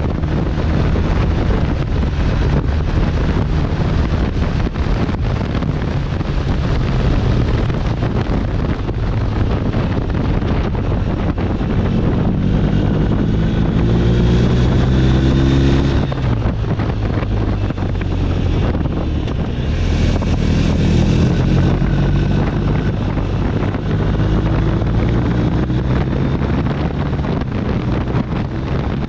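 BMW R1250 RT's boxer-twin engine running under way, heavily buffeted by wind on the microphone. The engine pitch climbs several times as it accelerates, falling off sharply once about halfway through.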